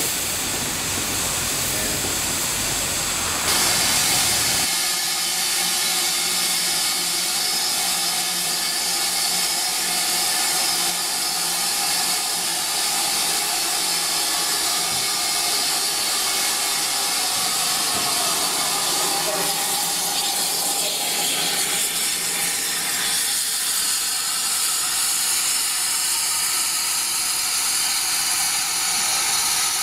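Steam locomotive hissing steam steadily. The hiss brightens briefly about three and a half seconds in, and a low rumble underneath stops a second later.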